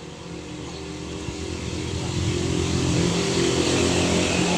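A motor engine approaching with a steady low drone. It grows louder over the first two seconds or so, then holds level.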